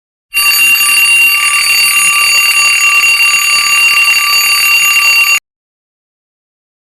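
Alarm clock ringing steadily for about five seconds, then cutting off suddenly.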